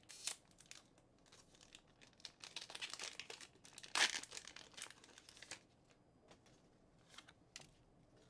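Foil trading-card booster pack being torn open and its wrapper crinkled, a run of crackles loudest about four seconds in. A few light clicks follow near the end.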